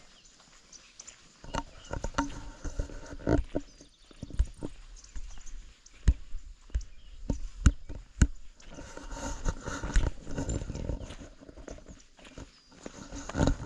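Footsteps on a trail with heavy breathing close to the microphone; the steps come as irregular knocks starting about a second and a half in.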